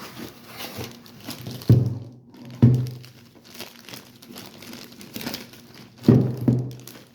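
Plastic packaging bag crinkling and rustling as a heavy boxed unit is handled, with three dull thumps, one about two seconds in, one a second later and one near the end.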